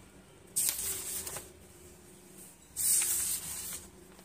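Paper pages of a printed book being turned by hand: two rustling page sweeps, each about a second long.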